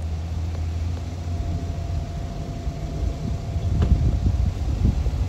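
A steady low vehicle hum, then uneven low rumbling of wind on the microphone, with a few soft thumps in the second half.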